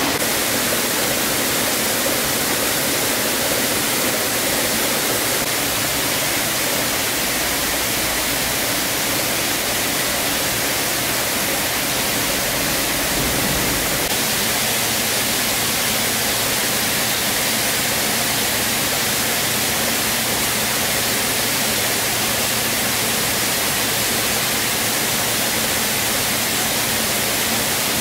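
Steady, even hiss of rushing noise, strongest in the treble, without breaks or changes.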